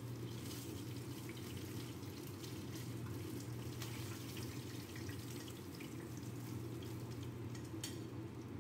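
Chicken wings frying in hot oil in a frying pan: a steady sizzle, with a few light clicks of metal tongs as pieces are lifted out, over a steady low hum.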